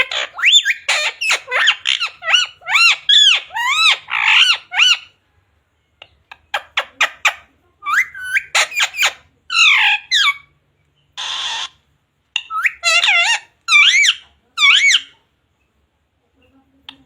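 Pet parrot chattering and squawking in quick runs of rising-and-falling calls, broken by short pauses, with one short harsh screech about eleven seconds in.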